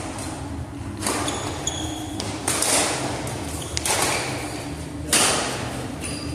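Sounds of indoor court play: short high squeaks of shoes on the floor, with knocks and thuds of the game, echoing in a large hall.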